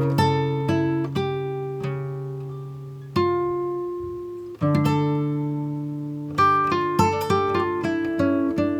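Background music of a plucked acoustic guitar playing slow notes and chords that ring out and fade.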